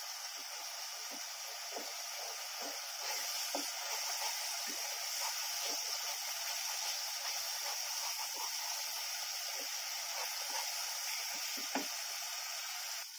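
Thick tomato-and-spice masala frying in oil in a kadhai, sizzling with a steady hiss that grows a little louder about three seconds in. A wooden spatula stirs and scrapes it around the pan in short, irregular strokes. This is the bhuna stage, frying until the oil separates.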